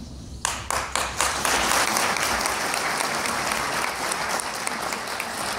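Audience applauding: a few scattered claps about half a second in, quickly building into steady, dense applause.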